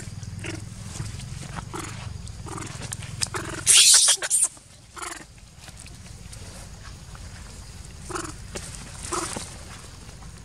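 Baby monkey giving short repeated calls, one every second or less, with a loud, harsh burst about four seconds in.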